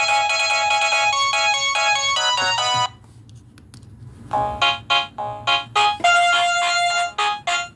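LG SD2130 phone playing its ringtones: a fast melodic ringtone cuts off suddenly about three seconds in, and after a pause of about a second and a half the next ringtone starts with short, choppy notes.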